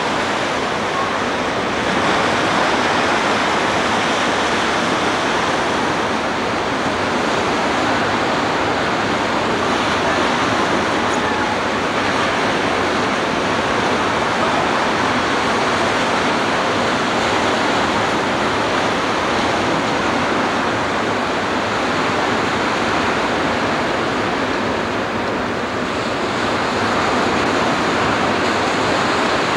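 Ocean surf breaking on a beach: a steady rushing noise with no lulls.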